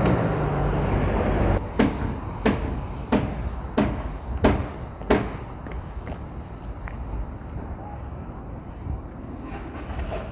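Road traffic rumbling loudly for about a second and a half, then dropping to a steady background hiss. Over it come six sharp, evenly spaced taps, about one and a half a second.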